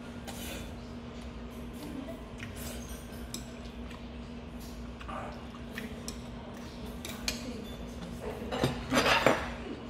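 Someone eating black-bean noodles: slurping and chewing, with metal chopsticks clicking against a ceramic bowl. A louder clatter of utensils against the dish comes near the end.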